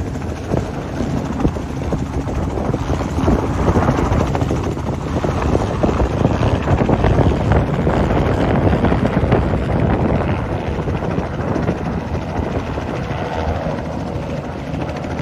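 Single-engine piston light aircraft at full power on its takeoff roll, lifting off and climbing away: a steady propeller-and-engine drone, loudest about halfway through.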